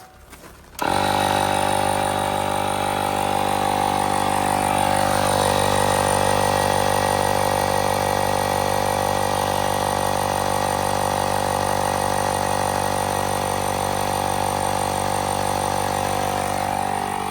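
Portable 12-volt tire inflator switching on about a second in and running steadily, pumping air into a flat trailer tire.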